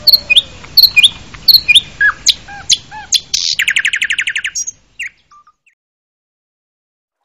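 Birds chirping: sharp repeated chirps and short falling whistled notes, then a fast trill about three and a half seconds in, all stopping about five seconds in.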